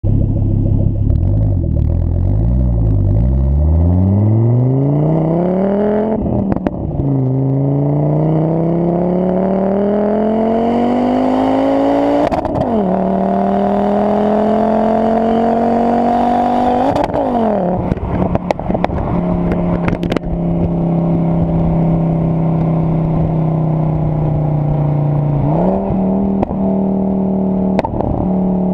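Heavily modified Volvo S60 T5's turbocharged engine through its Magnaflow exhaust, heard at the tailpipe: pulling away and accelerating through the gears, the note rising steadily and dropping at each of three upshifts, with sharp pops at the shifts. It then cruises at steady revs, with a brief dip and step up a few seconds before the end.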